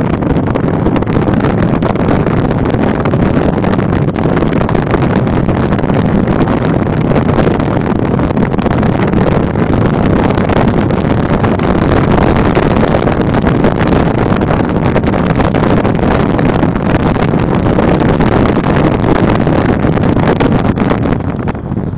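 Steady engine and tyre noise of a car driving at speed, heard from inside the cabin, with wind rushing over the microphone.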